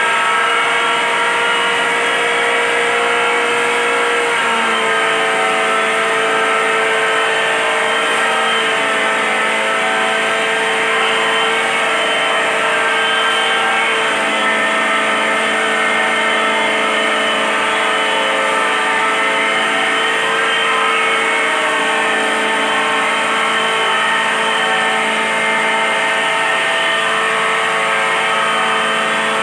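Electric chilli grinder (pulverizer) running steadily: a loud, constant mechanical whine of many steady tones, which dips slightly in pitch about four seconds in and again about halfway through.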